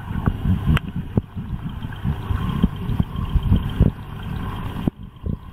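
Muffled underwater rumble of moving water with irregular soft knocks, as picked up by a camera microphone submerged in a pool.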